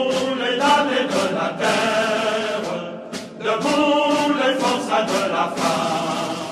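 Choir singing, with a short break about three seconds in.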